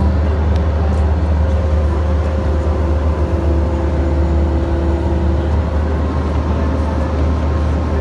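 Bobcat compact excavator's diesel engine running steadily under load, a loud low drone heard from inside the cab. A higher steady tone comes in about three seconds in and stops a couple of seconds later.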